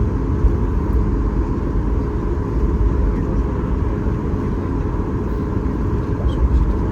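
Steady low rumble inside the cabin of a Boeing 737 MAX 8 taxiing after landing, its CFM LEAP-1B engines at idle, with a faint steady whine above it.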